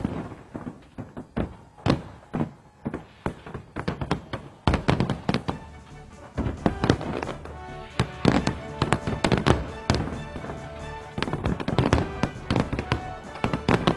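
Aerial fireworks shells bursting in a string of sharp bangs and booms, spaced out at first and then coming thick and fast from about a third of the way in, with music playing underneath.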